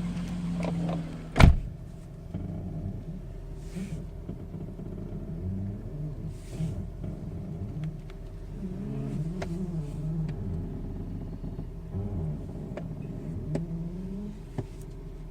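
A car creaking: low, wavering creaks that rise and fall continuously over the sound of the car. A sharp click about a second and a half in is the loudest sound, and a steady hum stops just before it.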